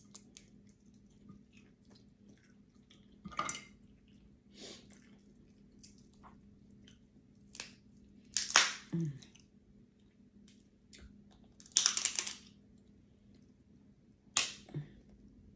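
Cooked crab legs being cracked and pulled apart by hand: several short crackling snaps of shell, the loudest about halfway through and again near twelve seconds, between small clicks and chewing.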